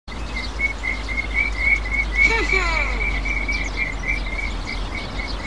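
Insect chirping: a short chirp at one high pitch, repeated steadily about three times a second, with a couple of brief falling calls about two and a half seconds in.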